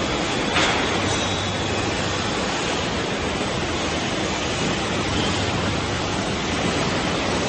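Heavy concrete mixer truck running: a steady rushing noise over a low hum, with a brief click about half a second in.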